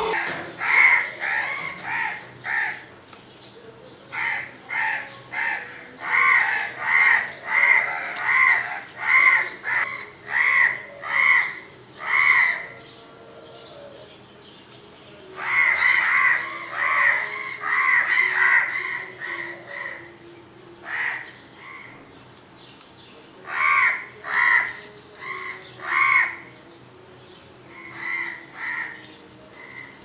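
House crows cawing harshly and repeatedly: mobbing calls at a barn owl. The caws come in runs of about two a second, with a few seconds' pause about halfway through and shorter gaps later.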